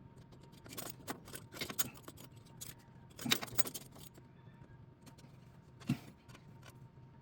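Scattered metallic clicks and rattles as an oil filter wrench is fitted and worked on a tight oil filter, in irregular clusters.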